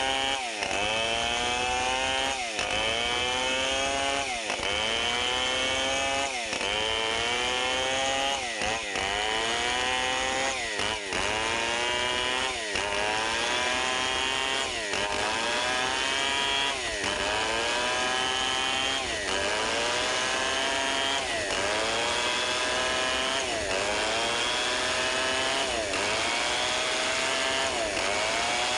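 Chainsaw running at high revs while cutting into wood, its engine note dipping sharply under load and climbing back about every two seconds as the saw works through the log.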